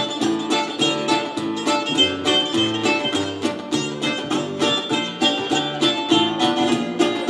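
Instrumental break of a live Greek band: bouzouki, acoustic guitar, electric upright bass and drums playing an up-tempo tune with a steady beat and a moving bass line, no singing.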